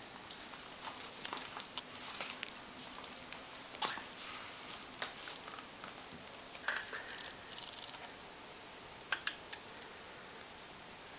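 Soft rustling of a fabric bed cover with scattered light clicks and ticks, irregular and quiet, as a cat rolls over and stretches out on it.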